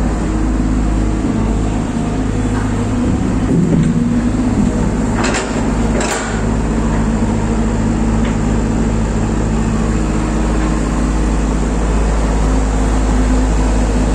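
JCB excavator's diesel engine running steadily under hydraulic load as the bucket digs and lifts soil, its note wavering briefly about three to four seconds in. A few sharp knocks come around five to eight seconds in.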